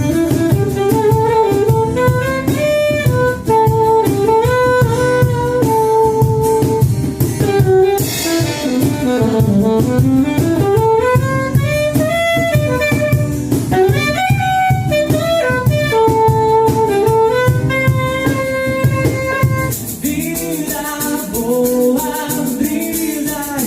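A band playing an instrumental break between sung verses: one lead instrument carries a melody with sliding and held notes over bass and drums. About 20 seconds in the bass drops away, leaving the melody over a high rattling percussion.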